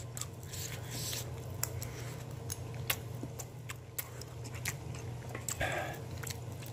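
Someone eating: small clicks and smacks of chewing, and a metal spoon scooping rice and dipping into an aluminium pot of braised fish, over a low steady hum.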